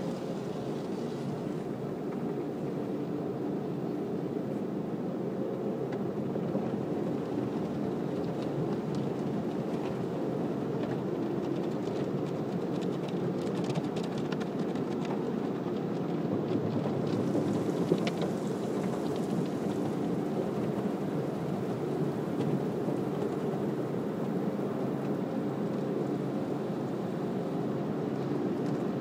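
Automatic car wash heard from inside the car: a steady rush of water spray and soapy foam washing over the windshield. There is a single sharp knock about two-thirds of the way through.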